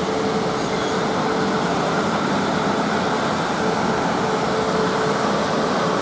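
South Western Railway Class 450 Desiro electric multiple unit running into the platform close by: a steady rush of wheel and running noise as the carriages roll past.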